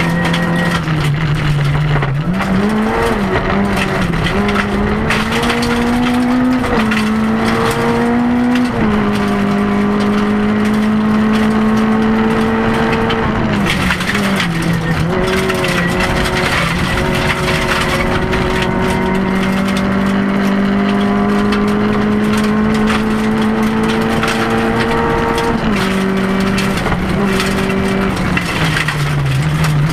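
Rally car's engine heard from inside the cabin, driven hard on a gravel stage: the engine note climbs and drops with gear changes and lifts about 3, 7 and 9 seconds in, holds a long steady pull, dips near the middle, pulls again and falls away a few seconds before the end. Tyre and gravel noise runs under the engine.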